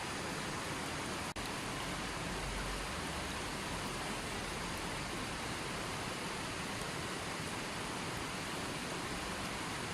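Running water flowing steadily, an even rushing with no music. It drops out for an instant just over a second in.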